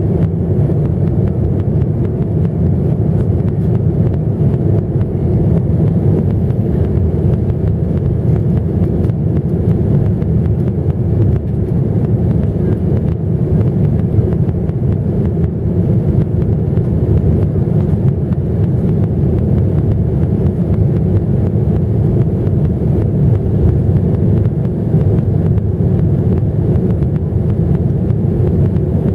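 Jet airliner's engines and airflow running with a steady, loud low rumble that holds level throughout.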